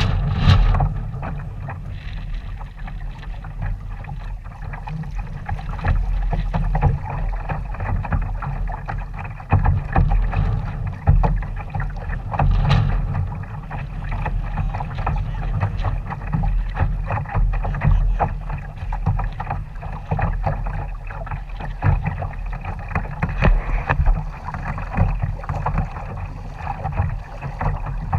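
Wind rumbling on the microphone over water slapping and splashing against a sailing kayak's hull, with irregular small splashes throughout.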